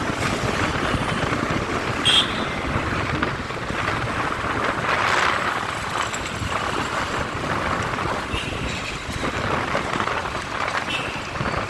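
Road traffic noise with wind on the microphone: a steady wash of passing vehicles, with a brief high-pitched tone about two seconds in and a few fainter ones near the end.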